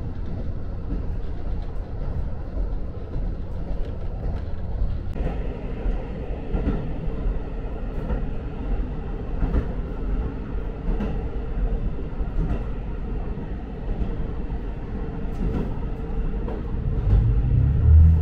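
KiHa 54 diesel railcar running along the line, heard from inside the car: a steady low engine drone and rumble, with faint clicks of the wheels over the rail joints every second or two. The drone swells louder near the end.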